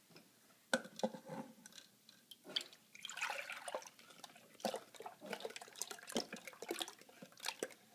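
Thick ice cream base pouring from a glass measuring cup into the frozen bowl of an ice cream maker, a soft splashy pour about three seconds in, with light clicks and knocks as a wooden spoon scrapes the last of it out of the cup.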